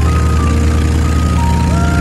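A small open-cockpit aircraft's engine droning steadily as the plane rolls fast along the ground. A melody of held high notes from music plays over it.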